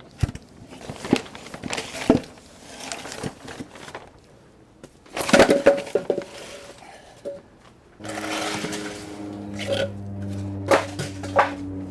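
Wooden blocks knocking and clattering as they are handled and set under a boat's keel, with a loud cluster of knocks midway. From about eight seconds a steady low hum runs under further knocks.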